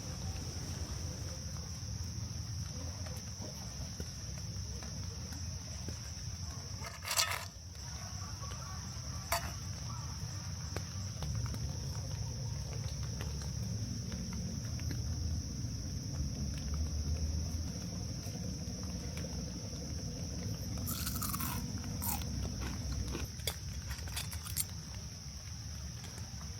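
Insects, crickets or similar, chirring in one steady high drone over a low rumble, with a few short crunching clicks now and then.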